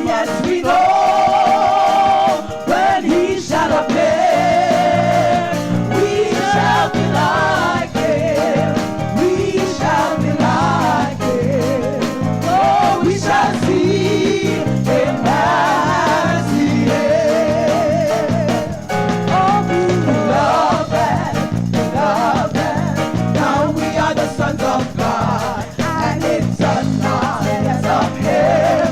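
Live gospel music: sustained, wavering melodic lines with vibrato over instrumental accompaniment, with a pulsing bass line coming in about five seconds in.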